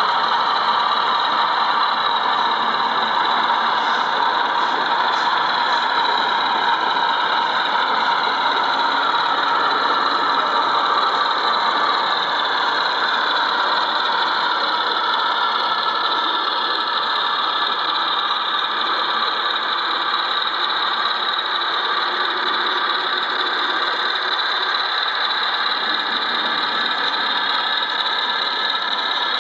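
A model Class 33 diesel locomotive running along the layout, with a steady diesel-engine sound.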